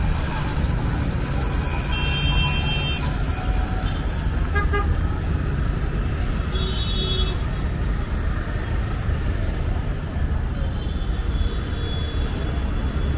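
Road traffic with a steady low rumble and vehicle horns honking over it: a short high-pitched horn about two seconds in, a quick beep-beep a little later, another horn around the middle, and a longer horn near the end.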